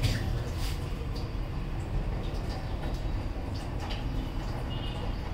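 Steady low rumble with a few light clicks and knocks of vegetables and utensils being handled at a kitchen sink.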